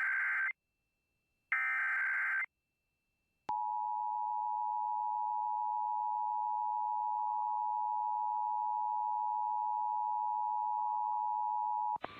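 Emergency Alert System tones. The end of one burst and then a second short burst of the SAME digital header's buzzy data tones, then after a second's gap the steady two-tone EAS attention signal, which starts about three and a half seconds in and runs for about eight and a half seconds. The header carries the coded alert data, and the attention tone announces the alert.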